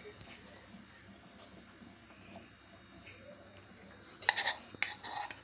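Faint room tone, then from about four seconds in a quick run of clinks and scrapes: a metal spoon knocking and scraping against a glass serving dish as thick chutney is scooped into it.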